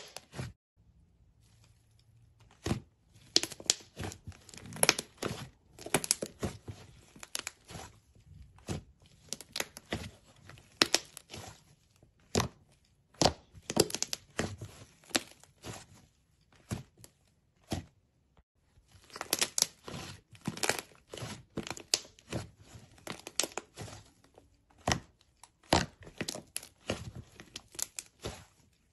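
Hands squeezing, kneading and pulling apart a white, fluffy slime, which gives quick crisp crackles and tearing sounds in irregular clusters. It stops briefly about a second in and again around two-thirds of the way through.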